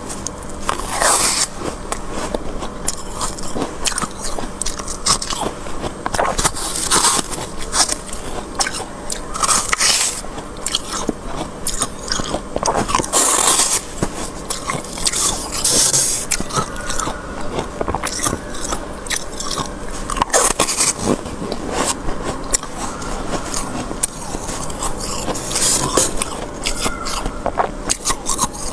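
Close, repeated crunching of thick freezer frost, scooped with a spoon and bitten and chewed, in irregular gritty crunches and short scrapes.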